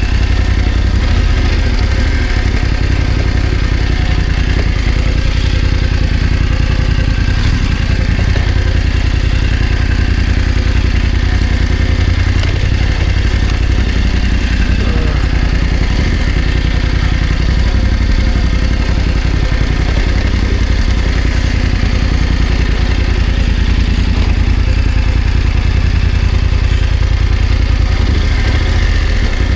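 BMW F900 GS's parallel-twin engine running at low, fairly steady revs, with a heavy, constant low rumble.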